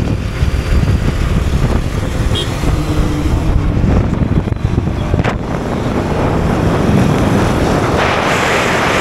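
Riding on a motorcycle: wind buffeting the microphone over the running engine and road noise. About eight seconds in, a louder rushing hiss comes in.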